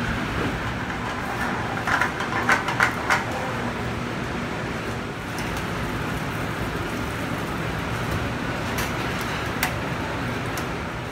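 Steady hum of a commercial kitchen's gas range and ventilation, with clinks and clatters of metal pans, tongs and the oven tray: a cluster about two seconds in and two sharp ticks near the end.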